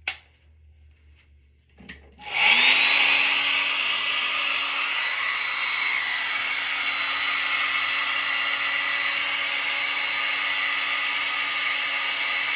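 Hair dryer on its cool setting switched on about two seconds in after a click, its motor spinning up with a short rising whine and then blowing steadily.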